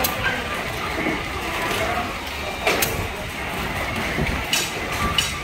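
Toy-excavator ball-scooping arcade game in play: a few sharp plastic clacks from the joystick-worked scoops and balls over a steady din of background voices and music.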